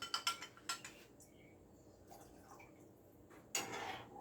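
A few light clinks of a spoon against a dish while cornstarch is mixed into cold water, then a quiet stretch; a louder rushing noise starts about three and a half seconds in.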